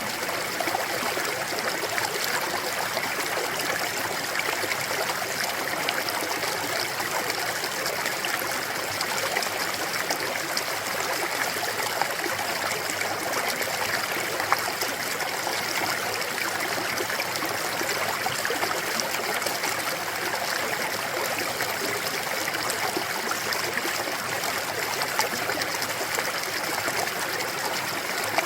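Mountain stream flowing over rocks: a steady rushing and babbling of clear water, with small splashes flickering through it.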